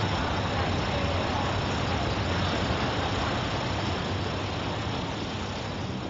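Busy city street ambience: a steady wash of traffic noise that slowly fades near the end.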